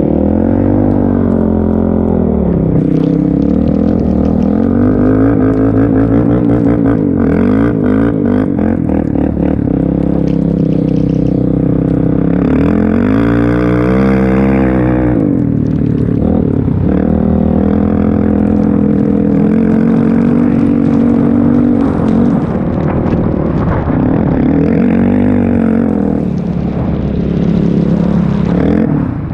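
Kawasaki KFX400 quad's single-cylinder four-stroke engine through a full HMF aftermarket exhaust, revving up and down over and over while drifting, with one long, high rev about halfway through.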